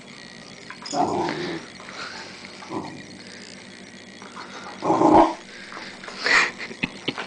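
Rhodesian Ridgeback puppy growling in short bursts as it play-bites at a shoe and trouser leg, about four growls with the loudest about five seconds in.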